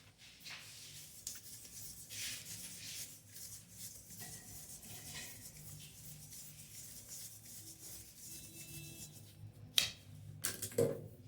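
Irregular rubbing and scraping from hands working on a kitchen sink mixer fitting, with a sharp click about ten seconds in and a short knock just after.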